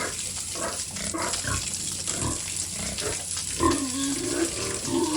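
Pigs grunting in a run of short, separate grunts. A longer pitched call starts about three and a half seconds in.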